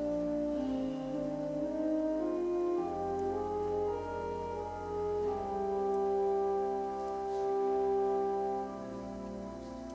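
Slow instrumental music with long held chords that change every second or two, soft and mellow in tone.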